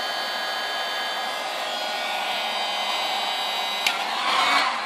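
Hot air gun running steadily, blowing hot air to shrink heat-shrink tubing over a soldered cable joint, its fan noise carrying a steady whine. A sharp click comes about four seconds in, and the noise then starts to fade.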